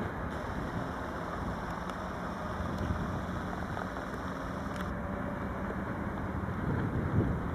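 Steady low rumble of an NS Koploper (ICM) electric intercity train approaching slowly over the station's tracks and points, with a faint hum.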